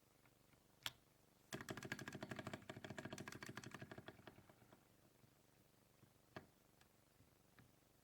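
Keyboard typing on Akko Haze Pink Silent linear switches in a 60% aluminium case: soft, quiet keystrokes. A single keypress about a second in, then a quick, even run of keystrokes for about three seconds that trails off, followed by a few scattered presses.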